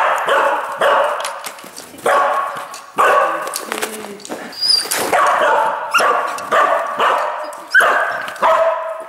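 Dog barking repeatedly, about a dozen sharp barks at roughly one a second, each echoing briefly.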